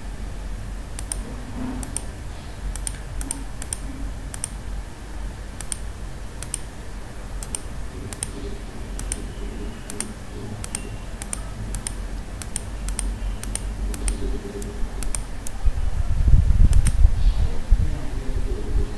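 Computer mouse button clicking: single sharp clicks at irregular intervals, roughly one to two a second, as points are placed one by one. Under them a steady low rumble, which swells briefly near the end.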